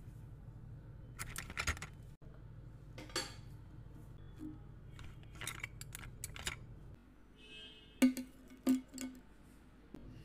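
Paint brushes and metal palette knives clicking and clinking against each other and a plastic pen holder as they are picked out and handled, with a few louder knocks about eight seconds in as tools are set down on a hard tabletop.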